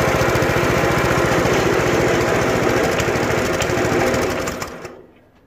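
Predator 212cc single-cylinder engine running steadily on a homemade buggy's belt drive, then winding down and stopping about four and a half seconds in. The slipping drive belt is overheating to the point of smoking.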